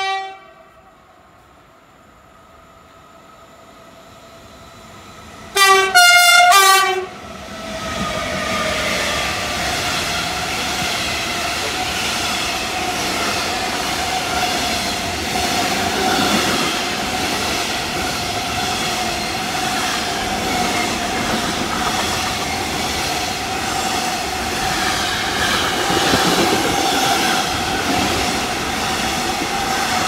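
A freight train's horn: one blast trailing off at the start, then a loud burst of short blasts about six seconds in. Then the container freight train passes close at speed, its wagons' wheels making a steady rolling roar on the rails with a ringing tone in it.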